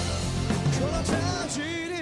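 A rock band playing live, with a melodic lead line bending in pitch over bass and drums. The bass and drums drop out near the end, leaving the lead line held alone.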